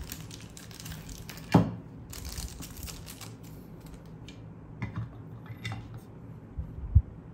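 Small hardware being handled on a desk: plastic parts bags crinkling, and hard plastic parts and screws clicking and knocking. The loudest knock comes about a second and a half in, and there is a dull thump near the end.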